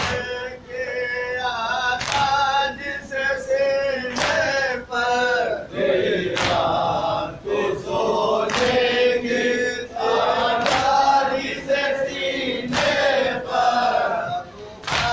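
A crowd of men chanting a noha together in chorus, with sharp rhythmic slaps of matam (hands beating on chests) about every two seconds.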